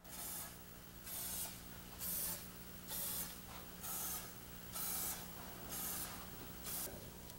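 Short hissing spray bursts, eight of them about a second apart, from a spray can worked by hand at the intake trumpets of a Judd V10 racing engine, over a faint steady low hum.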